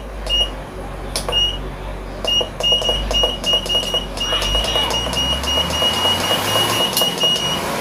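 Digital control box of a VEVOR heat press beeping as its buttons are pressed to set temperature and time: a few separate short high beeps, then from about two seconds in a quick regular run of about three beeps a second as the value is stepped, each with a faint click.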